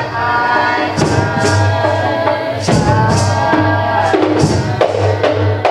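Music: singing over drums and a tambourine, with held sung notes and regular percussion strikes.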